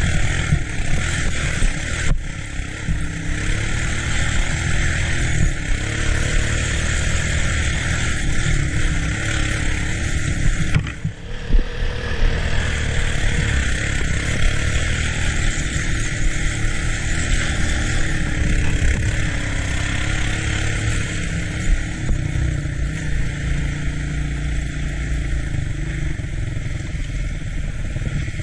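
Three-wheeled ATC engine running while riding, steady with small changes in throttle, dropping briefly about eleven seconds in.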